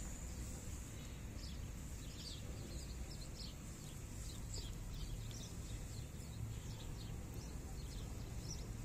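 Small birds chirping, a rapid run of short high chirps, over a steady low rumble of outdoor background noise.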